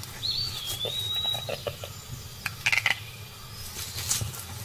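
A single whistled bird call that dips and then holds steady, followed about two seconds in by a quick run of crackling clicks from dry leaf litter as a mongoose moves through it.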